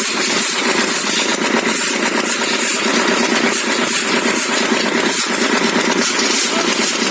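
A small motor running steadily with an even buzz, thin in the bass.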